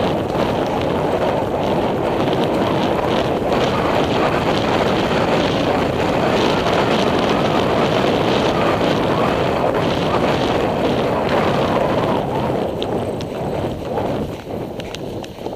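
Wind rushing over a helmet-mounted camera microphone as the horse gallops, with faint hoofbeats under it. The wind eases near the end as the horse slows.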